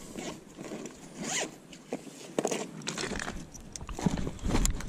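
Zipper on a fabric tackle bag being pulled, several short zips one after another.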